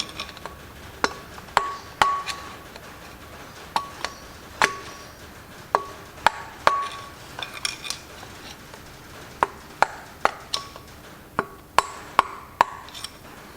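Irregular sharp metal-on-metal taps, each with a short ring: a small screwdriver being driven and worked under the lock tabs on the flywheel bolts to lift them up.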